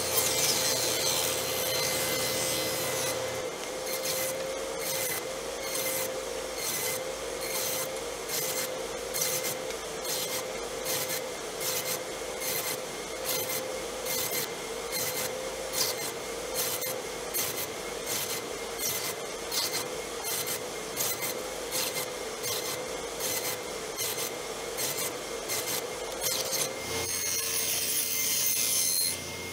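Table saw running steadily while its blade rips thin wood strips. For most of the stretch the cutting noise comes in even, rasping strokes a little under two a second, with a steadier cutting hiss at the start and near the end.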